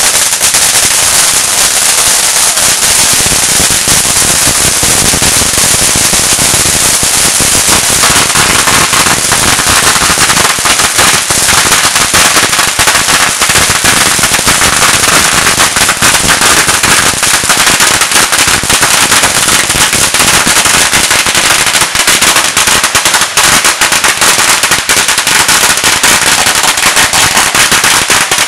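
A row of consumer firework fountains burning together: a loud, continuous hissing spray of sparks with dense crackling throughout.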